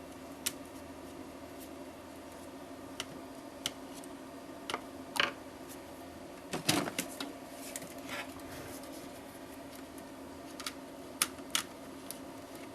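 Scattered light clicks and taps of small hard objects being handled, some in a quick cluster about halfway through, over a steady low electrical hum.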